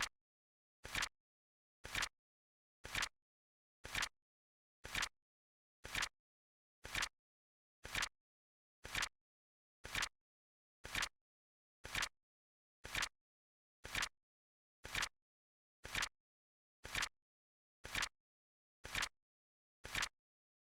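Flip clock sound effect: a short flap-click once a second as the seconds card flips over, evenly spaced, with silence between the clicks.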